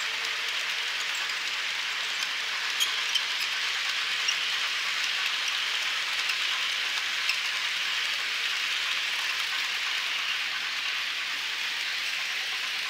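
HO scale model passenger cars rolling along the track close by: a steady rolling noise of wheels on rail, with a few light clicks.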